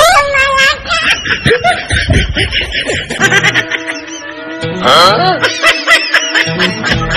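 Comedy background music with a steady beat, overlaid with a snickering laugh sound effect. A rising cartoon-style glide sound comes at the start and another about five seconds in.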